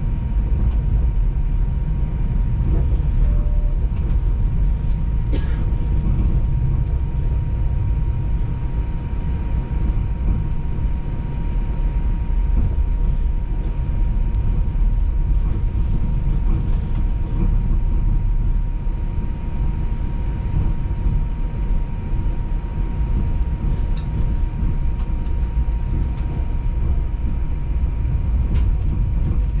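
TTC streetcar running along its rails: a steady low rumble with a thin, constant tone over it. There is a sharp click about five seconds in and another about twenty-four seconds in.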